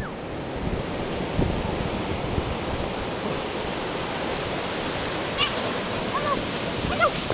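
Ocean surf breaking and washing in a steady rush. A few faint, short high-pitched sounds come through near the end.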